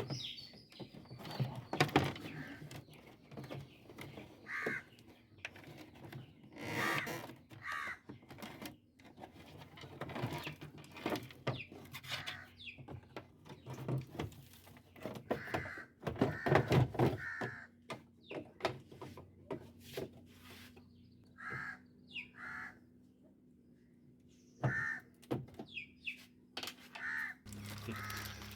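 Crows cawing repeatedly in short calls, with scattered clicks and knocks of parts and tools being handled.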